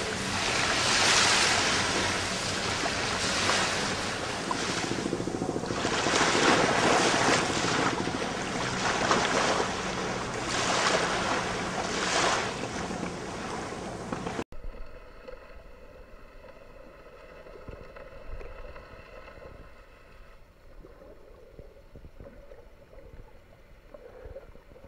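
Wind and waves at sea rushing in repeated swells. About halfway through, the sound cuts suddenly to a much quieter, muffled underwater recording with a faint steady hum.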